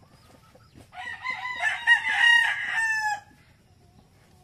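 A rooster crows once, a drawn-out call of about two seconds that starts about a second in and falls off at the end.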